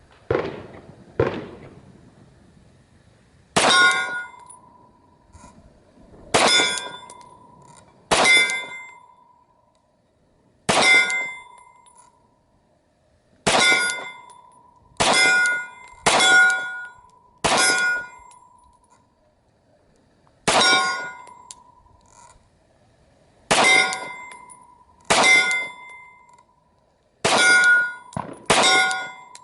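Rapid 10mm pistol shots from a Glock 40, most of them followed a moment later by a steel target plate ringing. There are about a dozen hits at uneven spacing of one to three seconds. The first two shots, near the start, have no ring after them.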